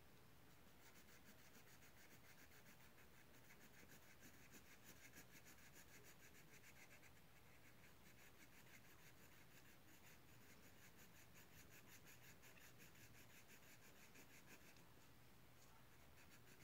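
Faint scratching of a pen or pencil moving over paper in quick, even strokes, as in writing or drawing; it stops shortly before the end.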